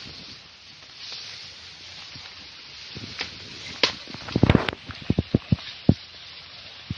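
Asian elephant tearing up tall grass with its trunk: steady rustling and crackling of vegetation, with a quick run of dull thumps and snaps between about four and six seconds in.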